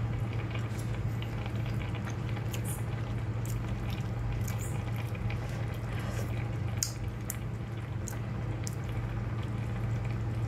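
Tomato-and-wine braising sauce around lamb shanks at a gentle simmer in a cast-iron braiser, with scattered small bubbling pops over a steady low hum.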